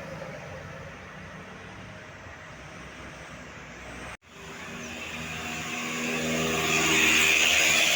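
Roadside traffic noise, cutting out for an instant about four seconds in. Then a tour bus's engine drone and tyre noise grow louder as it approaches, loudest near the end.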